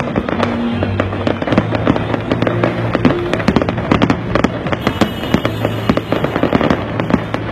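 Aerial fireworks exploding in a dense, irregular barrage of bangs and crackles, with many bursts close together throughout.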